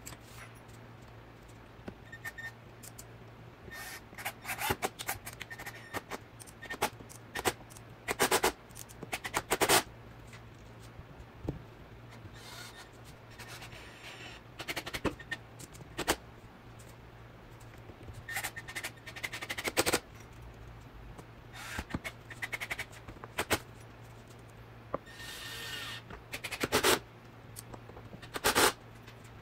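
Cordless driver running in about a dozen short bursts, driving screws into a wooden drawer box, with pauses between the screws.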